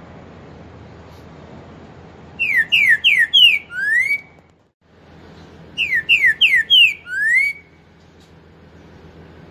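Green-winged saltator (trinca-ferro) singing its whistled 'four-note boi' song twice: each phrase is four quick falling notes followed by a longer rising note.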